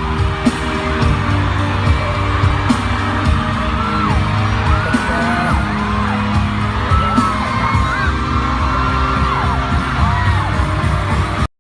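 Loud pop music with a heavy, hitting beat and high voices whooping and singing over it; it cuts off abruptly at the end.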